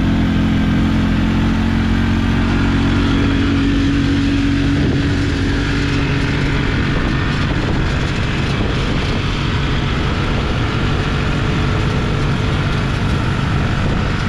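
Motorcycle-type engine running steadily at road speed, with wind and road noise from riding alongside; the engine note shifts lower about five seconds in.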